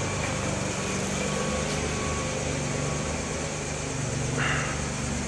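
An engine running steadily: a low, even hum, with a brief noise about four and a half seconds in.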